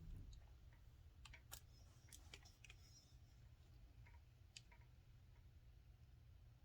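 Near silence: quiet room tone with a few faint, scattered clicks, most of them between about one and three seconds in.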